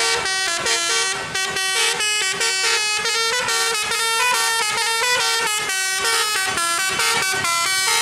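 Tourist bus's musical multi-tone air horn ("telolet" horn) playing a quick tune of short, stepped notes that change pitch every fraction of a second, with no break.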